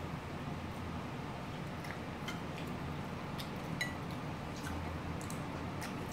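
Chopsticks clicking and clinking lightly against ceramic plates now and then, one clink with a short ring a little before the four-second mark. A steady low hum underneath.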